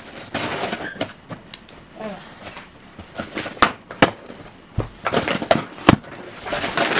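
Packaging being handled: rustling of plastic and cardboard, with a run of sharp clicks and knocks in the middle.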